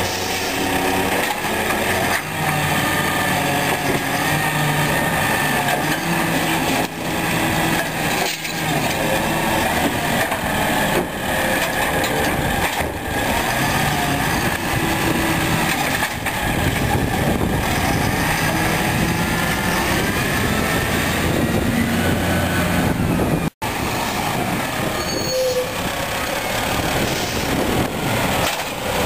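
Peterbilt 320 garbage truck with a Heil Formula 7000 automated side loader: its diesel engine runs steadily, its pitch rising and falling as the hydraulic grabber arm lifts, empties and sets down a trash cart, with an occasional knock.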